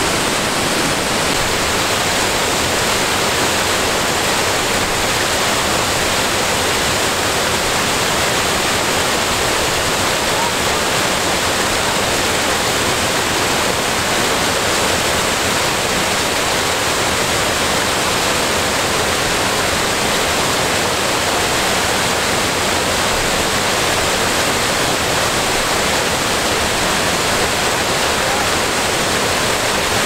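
Water rushing steadily over the tiered limestone cascades of a waterfall, an even, unbroken sound of falling water.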